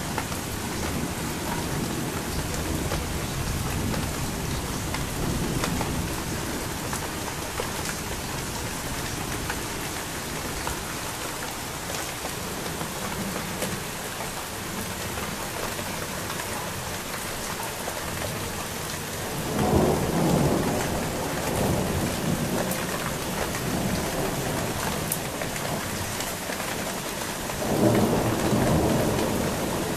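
Steady rain falling with thunder. A low rumble rolls through the first several seconds. Two louder claps of thunder, about two-thirds of the way through and again near the end, each break suddenly and roll off over a couple of seconds.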